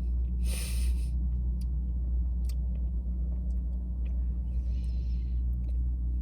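Steady low rumble inside a parked car's cabin, with a short rustle about half a second in, a few light clicks, and a softer rustle near the end.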